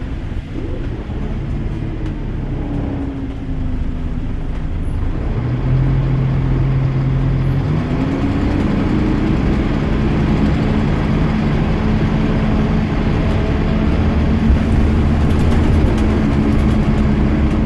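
Bus engine running under way. Its pitch falls over the first few seconds, it gets louder about six seconds in, then the pitch climbs and holds steady as the bus pulls on. A few faint ticks come near the end.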